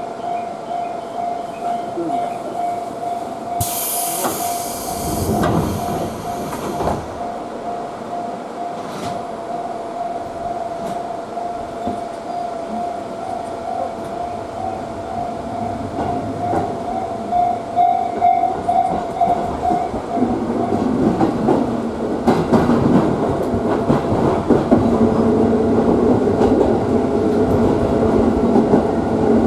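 Electric commuter train running on the rails, heard from inside the carriage, with a steady whine through most of it and a brief hiss about four seconds in. The running noise grows fuller and louder near the end.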